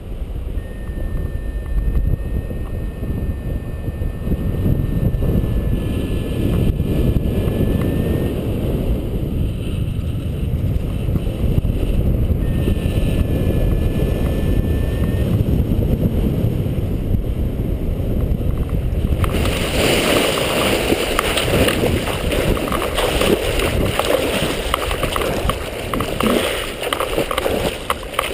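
Wind buffeting the microphone in flight, a low rumble with a thin steady high tone sounding twice. About 19 seconds in it changes suddenly to splashing and sloshing water as the paraglider pilot comes down in the lake, with the camera at the water's surface.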